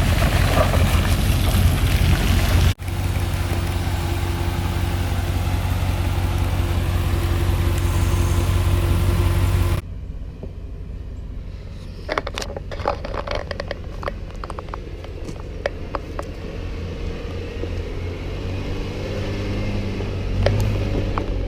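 Off-road vehicle driving a dirt trail. For about the first ten seconds the engine runs with a loud, steady rushing noise. After that it is quieter, with scattered knocks and rattles over a low engine hum.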